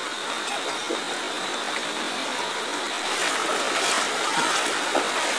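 Steady rushing of flash-flood water flowing over a road and into flooded rice fields, growing a little louder about three seconds in.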